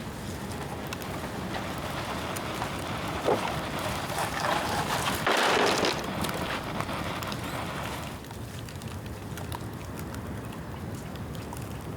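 Bonfire of rain-wet bamboo burning, crackling steadily with scattered sharp pops. A louder rushing noise swells about four seconds in, peaks briefly and dies away a few seconds later.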